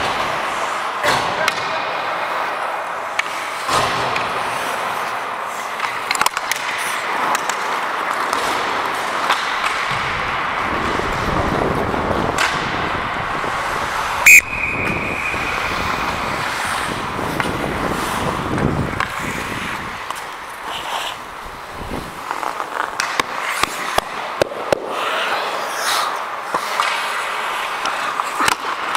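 Ice hockey play on the rink: skate blades scraping the ice and sticks and puck clacking, over a steady hiss. One loud sharp crack comes about fourteen seconds in, with a brief ringing after it.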